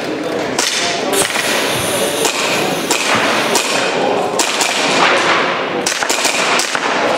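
Airsoft pistol firing a quick string of sharp snapping shots at uneven intervals, over steady background noise.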